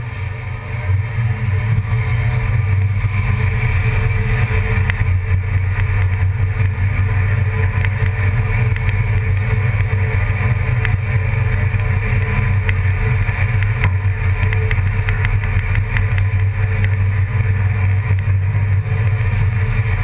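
A running engine's steady low drone, getting louder about a second in and then holding even.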